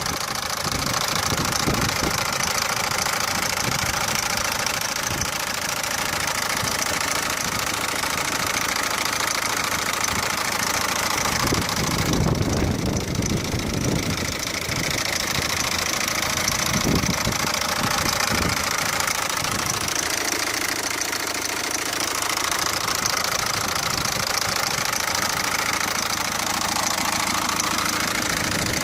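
Peugeot 407's 1.6 HDi diesel engine running, with the abnormal engine noise its owner is asking about. It runs steadily, swelling briefly around the middle, with a few sharp knocks a few seconds later.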